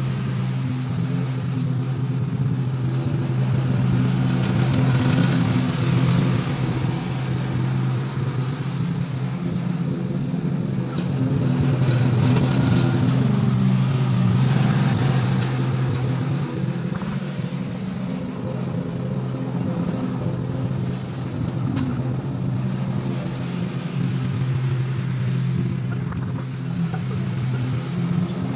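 Toro TimeCutter zero-turn mower's engine running steadily while it cuts grass, its level swelling and easing slightly as it moves.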